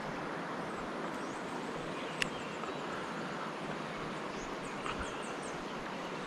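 Steady outdoor background noise beside a river, with one sharp click about two seconds in and a quick run of faint high ticks near five seconds.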